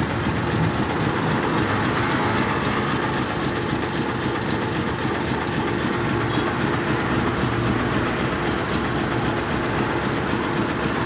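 Steady rumble of vehicle engines and road traffic, even in level throughout, with no distinct knocks or clicks standing out.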